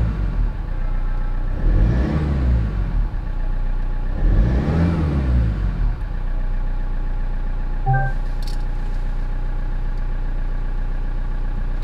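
Toyota HiAce's 2.8-litre 1GD turbo-diesel engine heard from inside the cab, revved twice, each rev rising and falling back in pitch, then settling into a steady idle. It sounds very quiet for a diesel.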